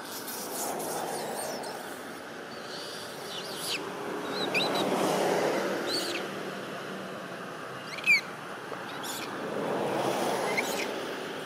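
Outdoor ambience: a rushing noise that swells and fades three times, with a handful of short bird chirps scattered through it, one sharper chirp about eight seconds in.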